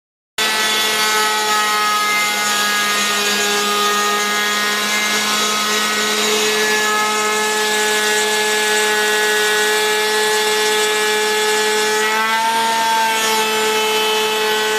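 CNC router cutting through a wooden board: the spindle's steady whine over the rasping hiss of the end mill chipping the wood. The sound starts suddenly, and the whine wavers and dips briefly about twelve seconds in.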